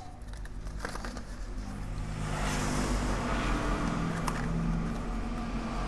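A motor vehicle's engine passing by, its sound swelling about two seconds in and slowly fading, over a steady low hum. A few light clicks come from a cardboard box being handled.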